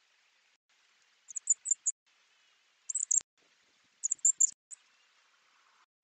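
Small songbird calls from around the bird feeder: three quick clusters of high, thin chirps of three or four pips each, over a faint woodland hiss.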